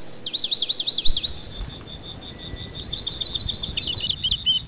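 A bird singing in runs of quick, high, repeated chirps. The second run, about three seconds in, comes faster than the first.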